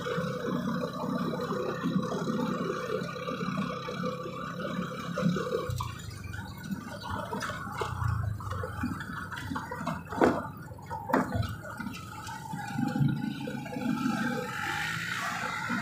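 A small vehicle's engine running while riding along the road, with rumbling wind noise on the microphone. A couple of sharp knocks about ten and eleven seconds in.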